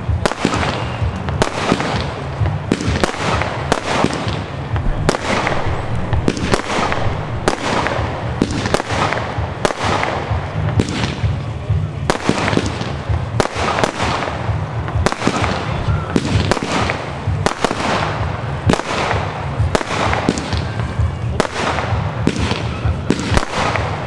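Nico Manhattan 187-shot compound firework cake firing continuously: a steady run of sharp shots, roughly one to two a second, each followed by a short crackling tail.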